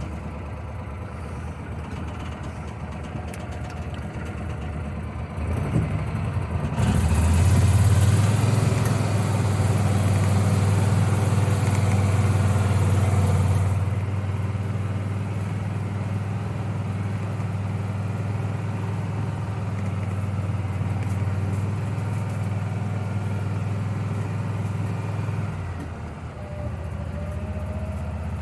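Vehicle engine running just after starting, idling, then pulling away about seven seconds in: the engine note rises and gets louder, with a rush of noise for several seconds, before settling into steady driving.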